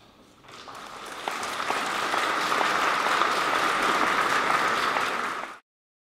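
Audience applauding: it swells over the first second or so, holds steady, then cuts off abruptly near the end.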